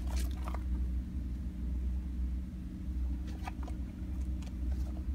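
A steady low mechanical hum, with a few faint ticks about three and a half seconds in and near the end.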